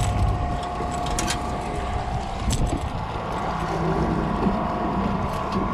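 An engine running steadily with an even hum and low rumble, wind buffeting the microphone, and a few faint clicks.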